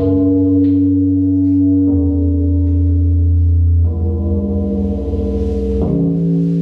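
Live electronic music from a modular synthesizer: held drone chords over a deep bass, each switching to a new chord about every two seconds.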